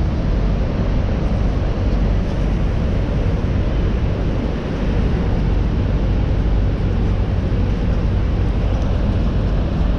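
Steady low rumble of a tour boat under way, its engine noise blended with wind on the microphone.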